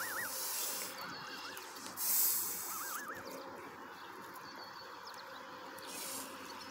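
Canada goose goslings peeping in short wavering trills, several times, with bursts of hissing from the adult geese, the loudest about two seconds in. The hissing is the parents' defensive warning at an intruder near their young.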